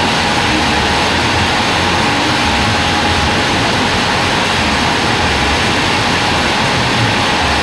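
Band sawmill running with a loud, steady machine noise and a faint steady whine.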